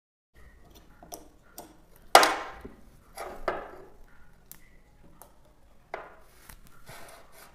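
Clicks and knocks of metal battery clamps being clipped onto a 12 V battery's terminals while the inverter is handled, with one louder knock about two seconds in.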